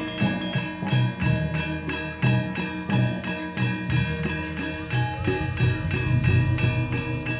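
Jaranan gamelan music: ringing metal gong-chimes playing over a steady rhythm of drum strokes.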